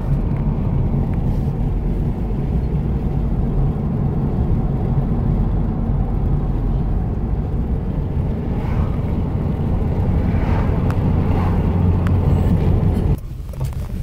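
Road and engine noise inside a moving car's cabin: a steady low rumble, with oncoming cars swishing past a few times in the later part. Shortly before the end it cuts off abruptly to a quieter sound.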